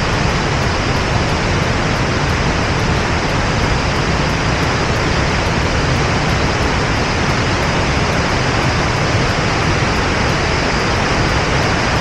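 White water of river rapids pouring out below a weir's sluice gates and churning under a bridge: a loud, steady rushing.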